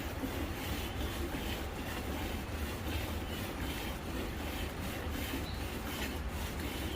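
Hand milking of a Jersey cow: faint swishes of milk squirting into a pail about twice a second, over a steady low rumble.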